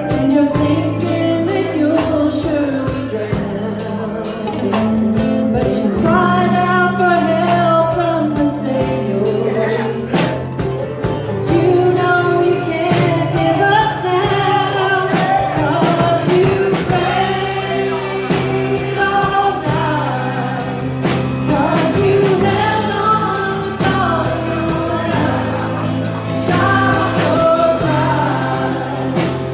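Gospel worship song played live: voices singing a melody over a band with sustained bass notes and a steady drum beat.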